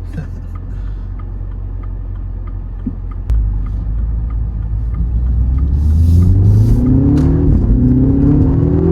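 2026 MINI Countryman JCW's turbocharged four-cylinder engine under hard acceleration in go-kart mode: the throttle opens about three seconds in and the engine note climbs, drops at one upshift of the dual-clutch gearbox, then climbs again.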